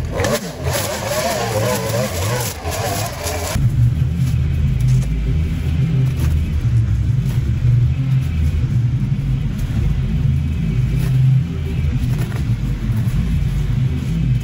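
Gas string trimmer engine running and revving up and down as it cuts through overgrown grass and vines. About three and a half seconds in, the sound changes abruptly to a lower, steadier drone with a deep rumble.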